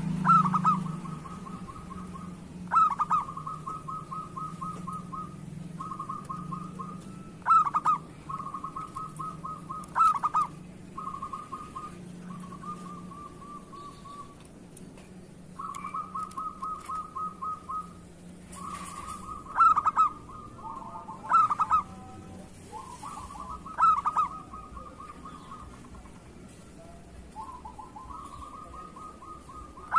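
Zebra doves (perkutut) cooing over and over, about a dozen phrases. Each phrase is a sharp opening note followed by a rapid rolling trill held for a second or two. Some phrases overlap, as when more than one bird calls.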